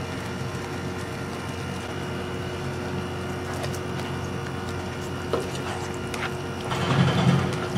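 A plastic spatula stirs sliced beef into a cream sauce in a nonstick frying pan, with a few light taps on the pan and a louder stretch of stirring near the end, over a steady background hum.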